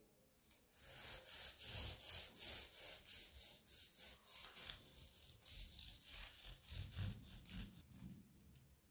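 A kitchen knife sawing back and forth through the crisp, flaky crust of a baked puff-pastry roll, a faint run of quick scraping, crackling strokes.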